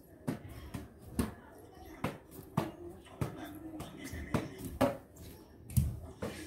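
Toilet roll being kept up with bare feet: a string of soft, uneven taps, roughly two a second, as the foot kicks the roll into the air, with one heavier thump near the end.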